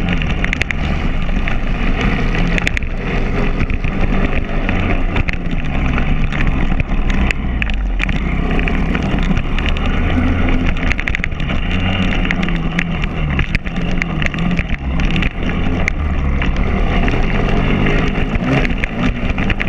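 Pit bike's single-cylinder four-stroke engine, heard from on the bike, revving up and falling back over and over as it is ridden round a dirt track, with knocks and rattles running through it.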